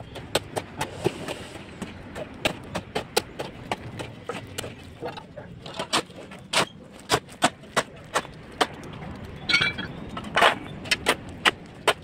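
Steel shovel scraping and chopping into a heap of gravel, sand and cement on a concrete floor, hand-mixing concrete: a run of short, sharp clinks and scrapes, a few each second.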